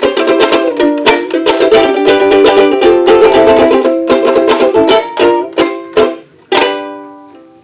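Acoustic string instrument strummed fast, then a few separate strums and a final chord that rings out and fades, closing the song.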